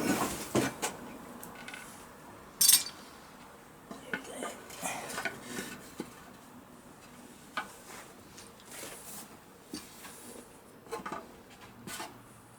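Irregular clinks, clunks and knocks of metal tools and parts being handled, the loudest right at the start and a sharp clank a little under three seconds in.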